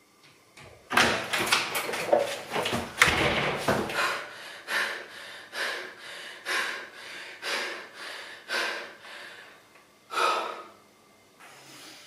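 A front door being rattled open and slammed shut, a cluster of knocks and clatter, then a woman panting hard after running. The breaths come about one a second and fade, with a louder breath near the end.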